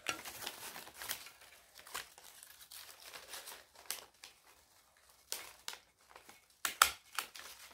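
Paper strips rustling and crinkling as they are handled and arranged, then two sharp clicks near the end as a desktop stapler is pressed down through the paper.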